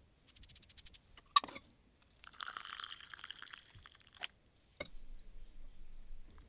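Water poured from a gooseneck kettle into a glass of dry yerba mate, a hissing pour lasting about two seconds. A sharp knock comes just before it, the loudest sound here, and another knock follows the pour.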